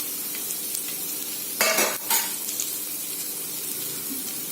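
Chopped garlic and chili sizzling in hot oil in a pan, a steady frying hiss, with a brief louder stirring scrape against the pan a little under two seconds in.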